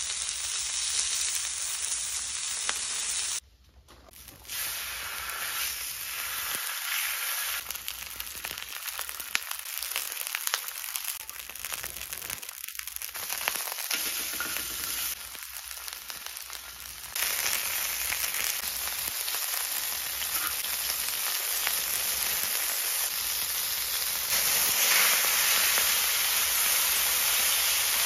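Pork belly and kimchi sizzling steadily on a hot griddle pan over charcoal, with scattered pops and clicks. The sizzle drops out briefly about four seconds in and grows louder in the second half.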